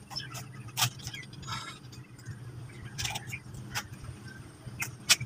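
Plastic fan rake dragging cut grass over a concrete path, its tines giving a few sharp scrapes and clicks, over a steady low hum.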